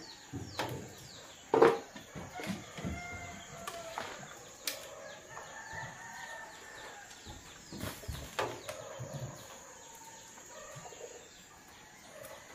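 A rooster crowing, with long arching calls about three seconds in and again around six seconds. Over it come sharp metallic clanks from a cooking pot's lid and ladle; the loudest comes near two seconds in, as the lid comes off.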